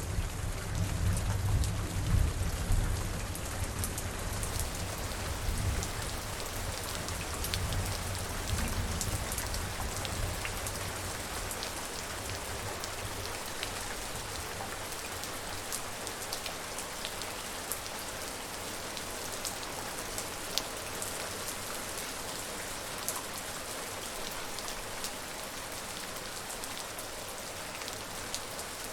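Steady rain falling, with scattered drops ticking on a surface. A low rumble of thunder dies away over roughly the first ten seconds.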